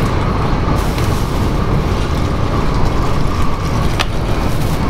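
Train running: a steady rumble with a faint hiss that brightens from about a second in.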